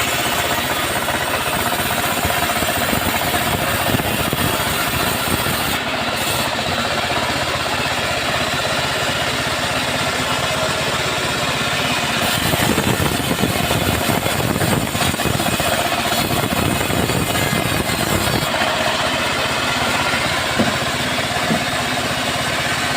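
Engine-driven band sawmill running steadily while cutting teak wood. There is a heavier, rougher stretch for several seconds past the middle.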